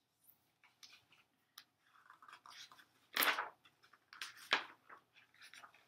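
Pages of a hardcover picture book being opened and turned: paper rustling and crackling, with louder swishes about three seconds in and again a second and a half later.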